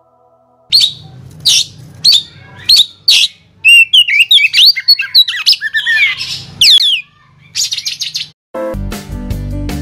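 Birds chirping in a quick series of short, loud, sweeping calls, with a low hum beneath. Near the end the birds stop and strummed guitar music comes in.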